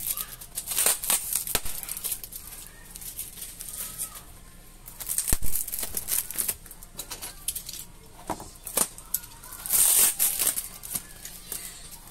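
Cardboard shipping box and its plastic packaging being handled: flaps rustling and scraping in bursts, loudest near the middle and about ten seconds in, with a single sharp knock about five seconds in.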